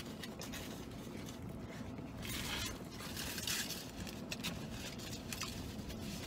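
Chewing a mouthful of chicken and avocado burrito with the mouth closed: soft, wet mouth sounds, with a couple of brief rustles about two and a half and three and a half seconds in.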